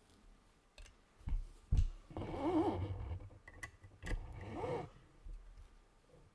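Scattered single keystrokes on a gasket-mounted aluminium-plate keyboard with Cera switches and GMK keycaps, a few slow isolated clicks. About two seconds in, and again near the five-second mark, a louder wavering pitched sound, like a voice, rises and falls over the clicks.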